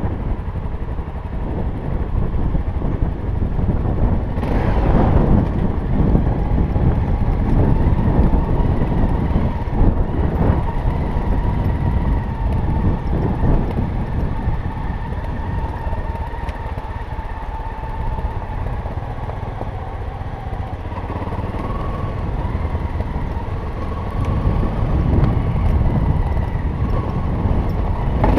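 Off-road motorcycle engine running steadily as it rides down a rough gravel trail, its pitch wavering a little. Heavy wind rumble sits on the helmet microphone.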